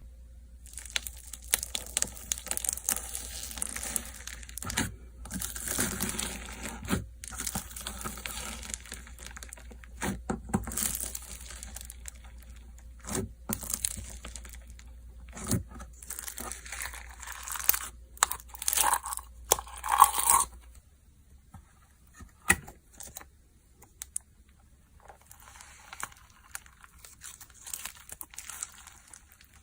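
Slime being handled, stretched and pressed, giving crackling, crinkling and tearing sounds with many sharp pops. It goes quiet for a few seconds about two thirds through, with only a few clicks, then softer crinkling resumes.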